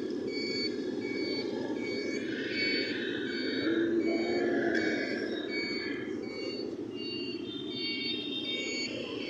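A high electronic beeper sounding about twice a second, over the steady rumble of motorbike and city traffic noise.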